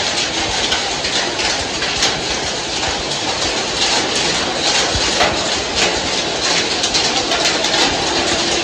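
Heavy rain pouring onto a paved road, a dense steady hiss with sharp drops ticking close by. A faint steady hum comes in near the end.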